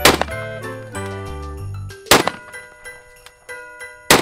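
12-gauge shotgun fired three times, about two seconds apart: once at the start, once about two seconds in, and once at the end. Background music plays between the shots.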